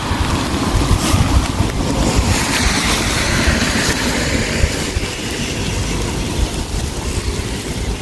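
Wind buffeting the microphone: a steady, uneven rumble with a hiss over it that swells in the middle.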